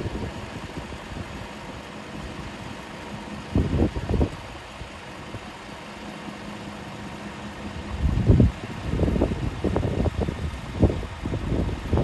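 2007 Volkswagen Touareg V10's air suspension compressor running as a faint steady hum that stops about eight seconds in. Gusts of wind buffet the microphone with loud low rumbles, once about three and a half seconds in and repeatedly after the hum stops.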